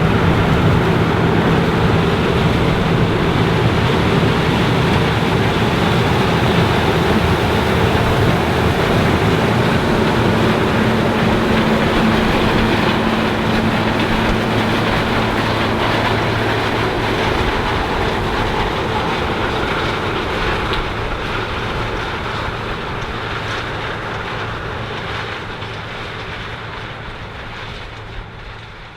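New Holland CR 9.90 combine, with its six-cylinder FPT Cursor 13 diesel, running steadily while harvesting corn: a constant engine hum over the rush of the threshing machinery. It fades gradually over the second half.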